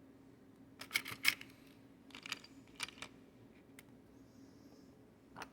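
A few sharp clicks and taps of small hard parts of a bar gun handle and a metal tool being handled, the loudest pair about a second in, with a few lighter ticks later, over a faint steady hum.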